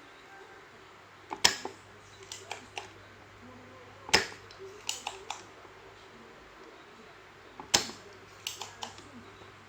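Hand tools working on a TV power board while a MOSFET is being taken off: three sharp snaps about three seconds apart, each followed by a few lighter clicks, over a faint steady hum.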